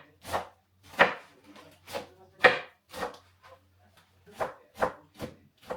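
Knife cutting freshly picked spinach on a cutting board: sharp chopping strokes, about two a second, with a short pause a little past the middle.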